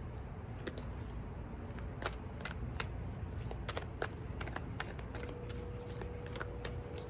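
Deck of tarot cards being shuffled by hand: a run of quick, irregular snaps and flicks. About five seconds in a background chime sounds one long, steady note.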